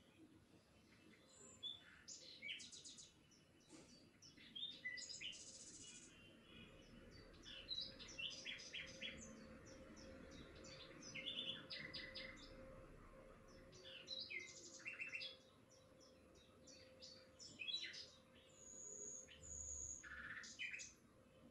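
Several small birds chirping and twittering, with many short high calls scattered throughout over a faint steady hum.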